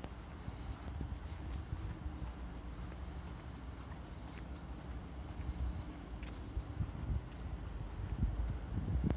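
Crickets chirring in a steady high trill, with the low rumble of walking with a handheld camera underneath.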